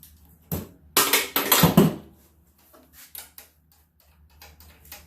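Metal tools and bolts being handled and set down: a knock about half a second in, a loud rattling clatter from about one to two seconds in, then light clicks.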